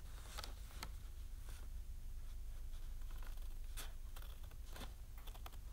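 Scissors cutting through several layers of thick folded paper: a handful of short, crisp snips at uneven intervals, with paper rustling, over a low steady hum.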